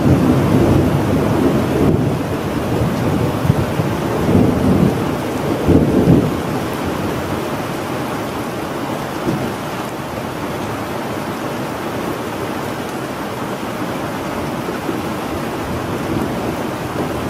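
Thunderstorm ambience: a low thunder rumble over steady rain. The rumble is strongest in the first six seconds, then dies away, leaving the rain's even hiss.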